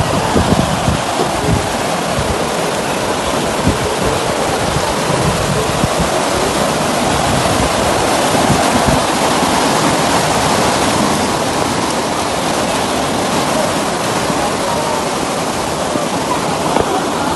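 Canal water pouring and churning through a brick-lined outlet where a small canal branches off the main canal. It is a steady, very loud rush of water.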